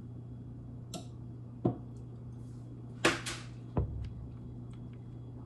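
A whisk and utensils clinking and knocking against a stainless steel mixing bowl: a few scattered sharp clicks, a quick double clatter about three seconds in, and a duller knock just after, over a steady low hum.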